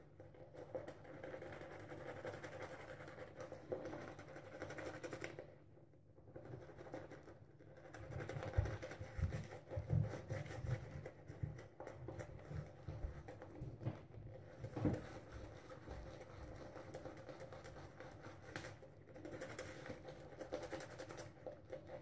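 Semogue boar bristle shaving brush working soap lather over the face: faint, irregular soft brushing and patting, with a few low soft thumps partway through.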